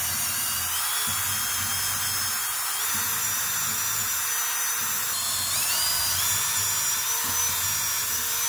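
Cordless drill running at steady high speed, boring a hole through a wheel chock's mounting hole into wooden trailer decking. A continuous high motor whine that shifts in pitch a couple of times.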